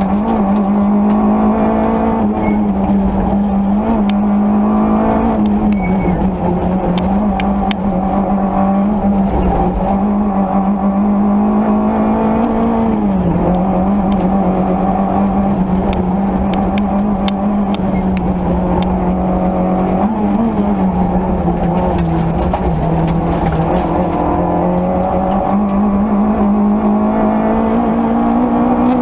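Peugeot 205 Rallye's four-cylinder engine at high revs, heard from inside the rally car's cabin at stage pace; the engine note dips and climbs again several times as the car lifts and changes gear, with scattered sharp ticks.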